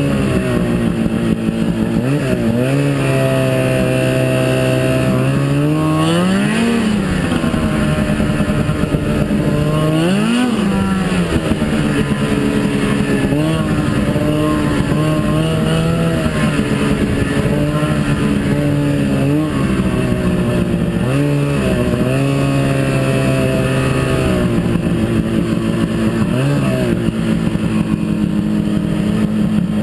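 Snowmobile engine running hard, its pitch climbing and dropping as the throttle is worked. It revs up sharply twice in the first third, then gives several shorter throttle blips between steadier stretches.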